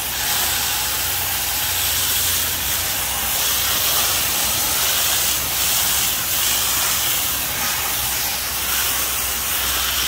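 Steady hiss of a garden hose's water jet spraying onto the fins of a Carrier outdoor air-conditioner condenser coil, rinsing out the foamed coil cleaner and dirt.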